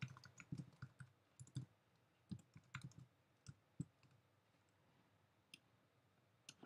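Faint typing on a computer keyboard: irregular key clicks for about four seconds, then two lone clicks near the end.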